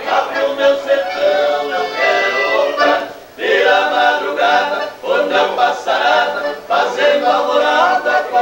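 Accordion playing a gaúcho folk song while several men sing together. The sung phrases break briefly about three and five seconds in.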